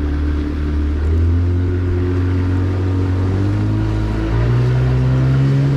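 Outboard motor running steadily as a small boat travels across open water; the engine note rises a little about four seconds in.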